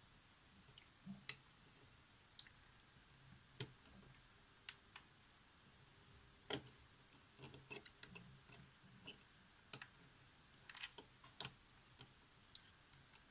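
Faint, irregular small clicks and taps of a hand tool on the metal contact tabs and parts of a Polaroid SX-70 camera as the tabs are bent one by one. The clicks are sharp and scattered, with a couple of louder ones about 3.5 and 6.5 seconds in, over a near-silent background.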